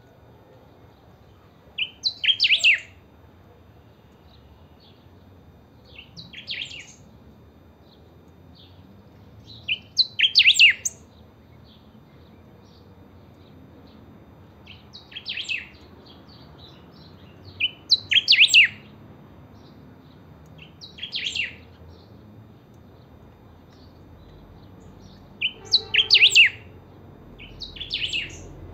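Caged saltator (picahueso) singing short, clear whistled phrases about every four seconds, louder phrases alternating with softer ones.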